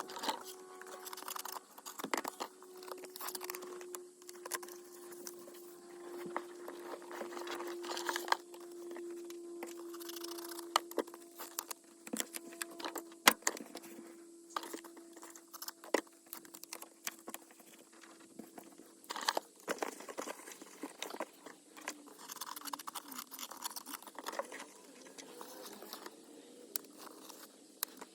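Sound-deadening mat being handled and pressed onto a truck cab's sheet-metal back wall: scattered sharp taps and clicks with crinkling and rustling. A steady hum runs underneath until about two-thirds of the way through.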